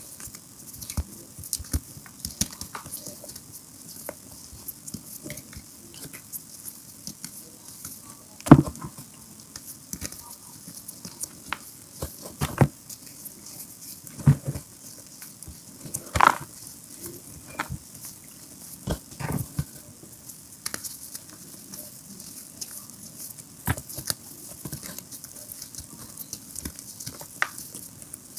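Hands crushing and crumbling lumps of reformed gym chalk in loose chalk powder: irregular soft crunches and crackles, with a few louder snaps, the loudest about eight and a half seconds in, over a steady high hiss.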